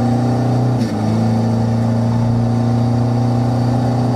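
Turbocharged diesel engine of a tuned Toyota Innova pulling hard under full-throttle acceleration, heard from inside the cabin. It holds a steady, deep engine note, with a brief dip in the note about a second in.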